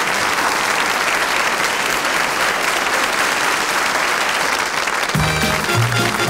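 Studio audience applauding. About five seconds in, instrumental music with a stepping bass line starts in under the clapping.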